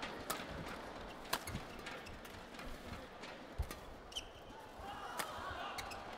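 Badminton rally: the shuttlecock is struck by rackets with sharp cracks a second or more apart, mixed with dull thuds of footwork on the court, over a low arena murmur.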